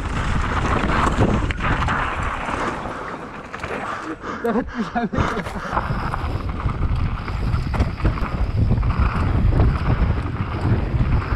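Wind rushing over the microphone with the rolling and clattering of a mountain bike riding down a bike-park trail at speed.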